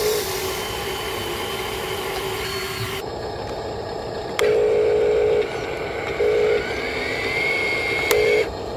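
Small electric motors of radio-controlled construction models whining. A steady whine for the first few seconds, then the dump truck's motor comes in short on-off bursts of steady whine as it drives, with a rising whine near the end.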